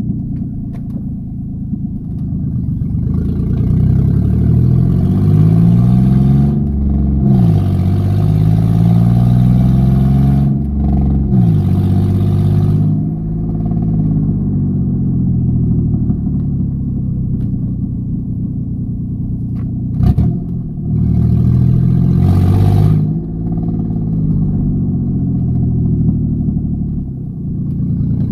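Ford Mustang engine idling and revved up several times, each rev rising and dropping back, with a hissy noise at the higher revs: the sound of an exhaust leak. A single sharp knock comes about two-thirds of the way through.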